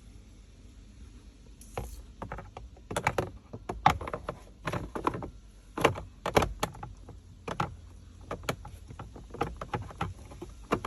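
Cabin air filter in its case being slid back into its housing behind the glove box: irregular scrapes, clicks and knocks of the parts rubbing and bumping as it is pushed in, starting about two seconds in.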